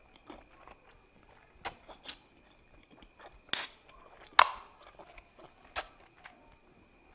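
Close-miked eating sounds of someone chewing fish: scattered wet mouth smacks and crunches, the two loudest about three and a half and four and a half seconds in.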